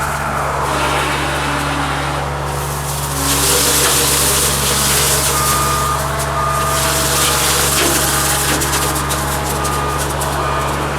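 Cat 279D skid steer's diesel engine running steadily under load. A loud rushing noise comes in about three seconds in, as from the brush cutter at work. A reverse alarm beeps repeatedly in the second half.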